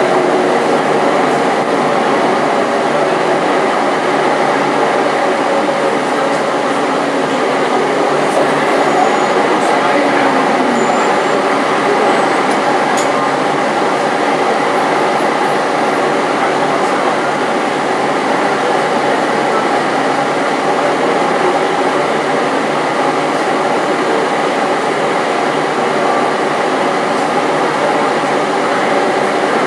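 Steady engine and road noise inside the passenger cabin of a SOR CN 8.5 midibus while it drives.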